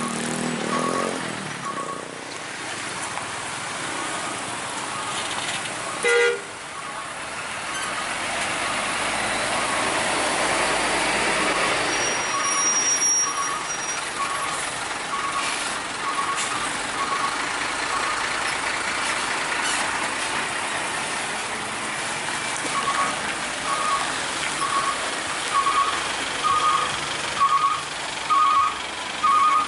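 Slow heavy truck and motorbike traffic running past on a rough road, with a short horn toot about six seconds in. A high electronic beep repeats at an even pace in the first few seconds and again through the last third, getting louder toward the end.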